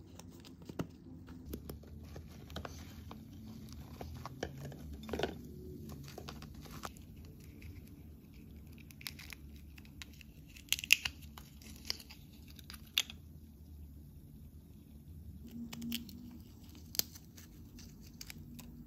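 Small wet plastic blind-bag wrappers crinkling and tearing as fingernails pick them open, with scattered clicks of little plastic toy pieces being handled; a cluster of sharper snaps comes midway.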